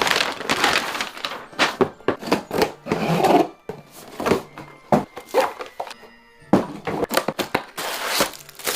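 A rapid, irregular series of sharp cracks and thuds with short noisy bursts between them, mixed with music, as in a back-cracking gag.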